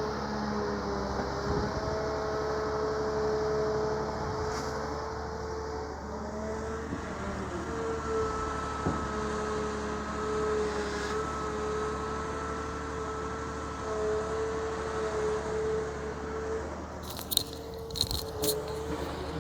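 Excavator running with a steady whine, its bucket scraping and crunching through seaweed, with a few sharp knocks near the end.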